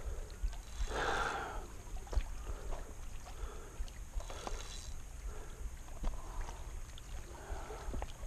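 Low, steady rumble of wind buffeting the microphone, with scattered faint clicks and two brief rustles, about a second in and again midway.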